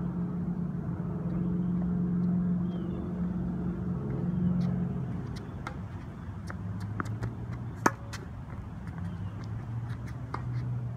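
A steady low engine-like hum, dropping lower after about six seconds. Over it come scattered light taps and one sharp tennis-ball impact just before eight seconds in.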